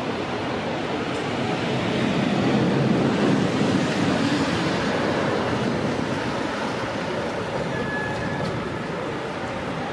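A city bus driving past over a steady din of street traffic. The noise swells about a third of the way in and then slowly eases off.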